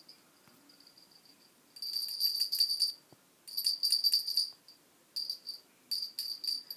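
A cat toy rattled in short shakes over a kitten: a bright jingling rattle, starting about two seconds in and repeating four or five times with brief pauses between shakes.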